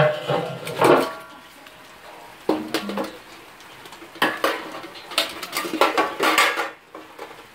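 Metal colander and cooking utensil clattering against the pot as freshly fried tostadas are set to drain: a series of clanks and scrapes, some with a short metallic ring, busiest in the second half.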